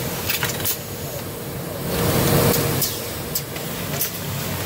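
KVAL 994-X hinge mortising machine at work: a steady hum of machinery with sharp clicks and knocks from its pneumatic actuators. A louder rush of noise comes about two seconds in and lasts under a second.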